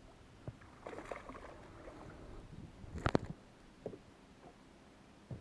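Water splashing as a hooked bass is brought to the side of the boat. About three seconds in comes a loud cluster of knocks as the fish is landed on the boat, followed by a couple of lighter knocks.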